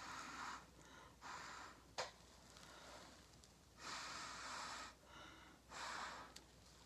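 Several short puffs of breath blown through a straw to push wet acrylic paint across a coaster tile, each lasting under a second, with one sharp click about two seconds in.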